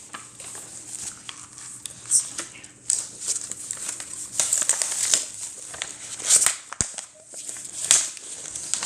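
A sheet of paper rustling and crinkling as it is handled and folded, in irregular bursts with a few sharper crackles.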